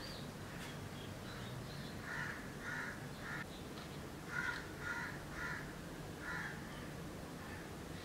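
Crows cawing: a run of about seven harsh caws roughly half a second apart, starting about two seconds in, over a faint low steady hum.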